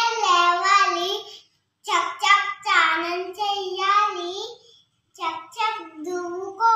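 A young child's high voice singing or chanting in a sing-song, in several short phrases with brief pauses between them.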